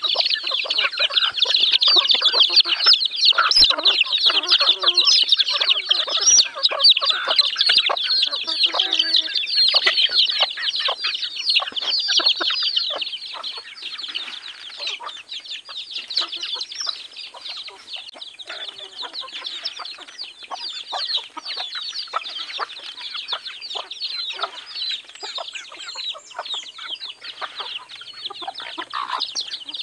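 A flock of native chickens and chicks feeding on scattered grain: a dense, continuous chatter of clucks, peeps and rapid pecking clicks. It is louder for the first dozen seconds and softer after that.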